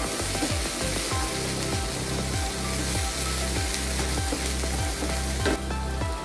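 Rechaedo masala paste frying in oil in a non-stick pan, sizzling steadily as it is stirred with a wooden spatula; the sizzle thins out about five and a half seconds in. Background music plays underneath.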